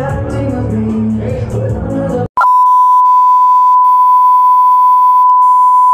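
Loud pop music playing over a crowd, cut off abruptly about two seconds in. A steady, loud single-pitch test tone then takes over: the reference beep that goes with TV colour bars.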